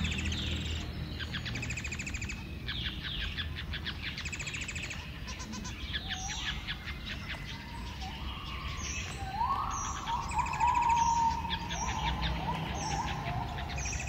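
Society finches (Bengalese finches) singing and calling: runs of rapid, buzzy, rattling notes throughout, with lower, clearer notes joining about six seconds in and peaking around ten seconds. It is the song of a pair being bred, typical of courtship.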